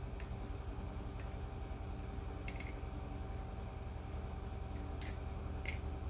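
TheOne Alien balisong (butterfly knife) being handled and rolled over in the hand: scattered light clicks of its metal handles and blade knocking together, about eight of them at irregular intervals.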